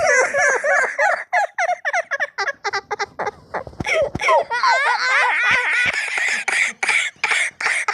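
A boy laughing, a quick run of high-pitched ha-ha pulses with pitch bending up and down.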